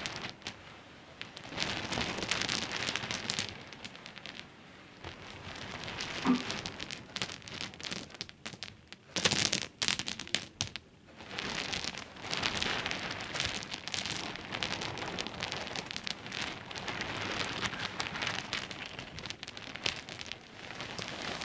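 Small pebbles clicking and rattling against one another, dense runs of quick clicks in bursts of a few seconds with short lulls between them.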